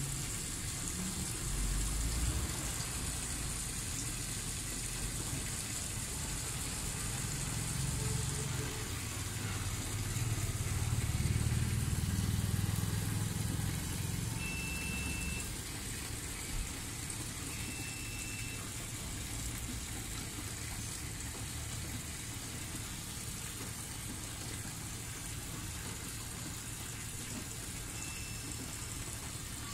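Water pouring in a steady stream from the spout of an instant electric geyser, a steady hiss. A low rumble runs underneath and swells for a few seconds about ten seconds in.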